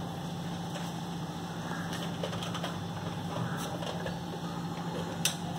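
Faint plastic clicks and handling of a Nerf Elite Disruptor being reloaded with darts, over a steady low hum, with one sharper click near the end.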